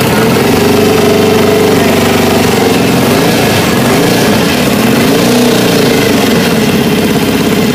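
Norton Commando 750's parallel-twin engine running steadily on a freshly built bike's first start. Its speed wavers slightly up and down.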